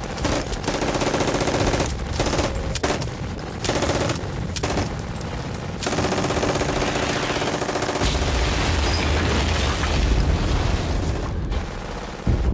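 War-film battle soundtrack: rapid machine-gun fire in bursts over the first several seconds, then continuous gunfire over a deep rumble, and a sudden loud blast near the end.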